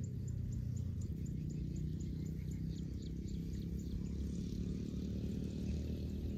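A steady low motor drone, with faint high chirping above it, about four chirps a second, that fades out around halfway through.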